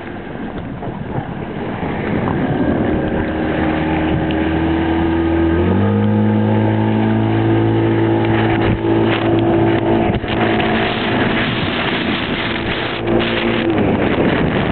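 Motorboat outboard engine running, its pitch stepping up sharply about six seconds in and falling away near the end, over strong wind rushing on the microphone.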